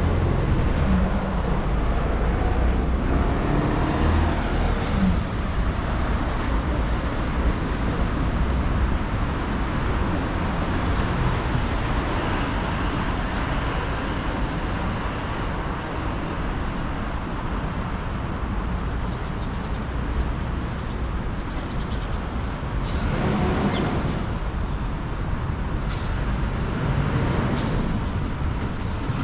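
Steady road traffic noise: the continuous rumble of engines and tyres from passing vehicles on a city street. It swells briefly about 23 seconds in.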